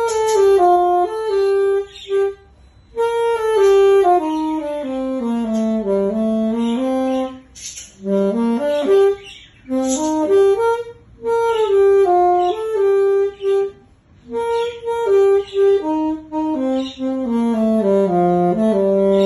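Solo alto saxophone playing a melody in short phrases of separate notes, mostly stepping downward in pitch, with brief pauses for breath between phrases. The last note is a low one held for a couple of seconds near the end.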